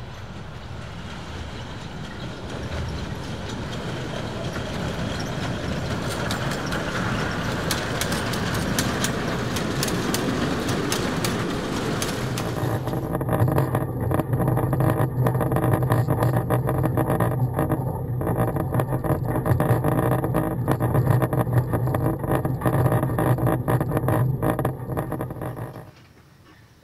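A 600 mm narrow-gauge train running past. For about the first half there is a rising rushing noise. Then, after an abrupt change, a steady low hum comes with a rapid clatter of wheels on rail, and it cuts off shortly before the end.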